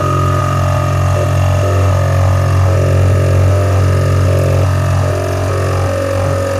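Vacuum pump of a packaging leak tester running steadily with a low hum while it holds vacuum on the test chamber.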